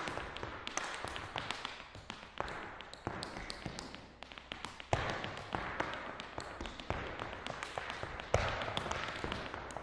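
Irish dance hard shoes striking a hard floor: a quick, irregular run of heel and toe clicks, with two heavier stamps, one about five seconds in and one near the end.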